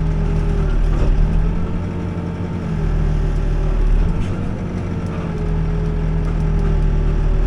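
Backhoe's diesel engine running steadily as the machine digs, its note dipping and recovering a couple of times under load, with a faint knock or two.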